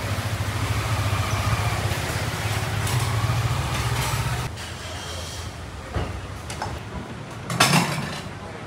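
Street traffic: a motor vehicle's engine running close by with a steady low hum, which drops away about halfway through. A short, louder noise follows near the end.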